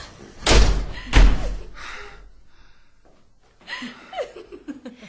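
Two heavy slams or thuds about half a second apart, near the start, in a horror audio story, fading into a quiet stretch; faint voices follow near the end.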